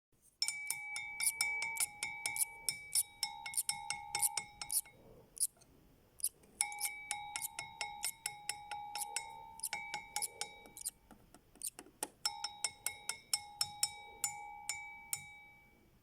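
Background music: a bell-like tinkling melody of quick struck notes over held tones, played in three phrases with short pauses between them.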